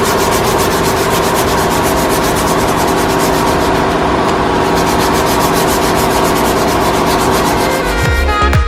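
Steady sanding of a motorcycle fuel tank's paint and body filler, scuffing it ready for primer and paint, with a fast, even pulse and a steady hum. Music with a deep bass beat comes in near the end.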